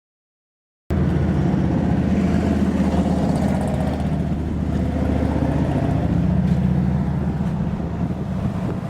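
Dead silence for about the first second, then a steady low rumble that carries on unchanged.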